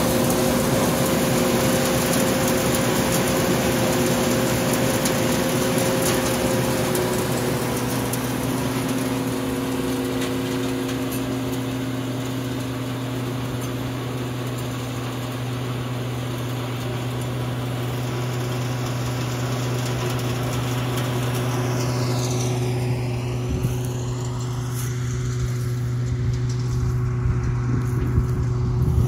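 An engine running steadily at constant speed, a steady hum with a fixed pitch.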